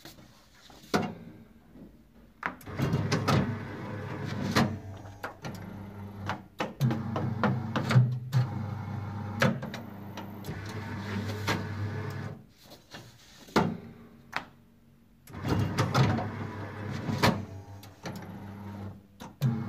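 Booklet maker (RM BM 35 SF staple-folder) working a set of sheets in automatic mode: its motors hum while it gives repeated clunks and clicks. The motors stop for a few seconds a little past the middle, then start again.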